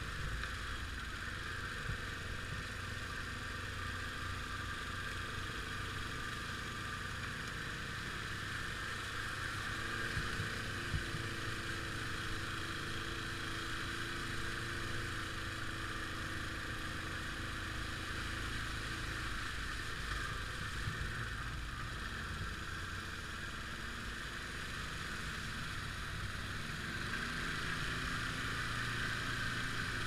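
ATV engine running steadily, heard from a camera mounted on the quad, with a steady hiss over it; it grows a little louder near the end.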